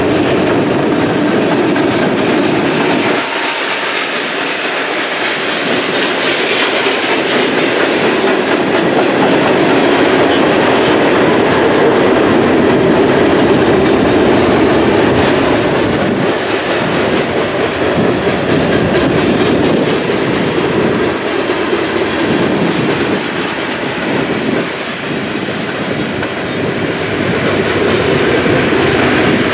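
Freight train rolling past at speed. The deep engine sound of the trailing EMD SD40-2 diesel locomotives drops away about three seconds in, leaving the steady rolling noise and clickety-clack of the freight cars' wheels on the rails.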